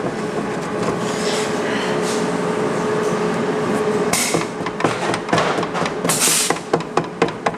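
A steady hum with a held tone, then two short, loud blasts of hissing spray or air a couple of seconds apart, then a run of quick light knocks.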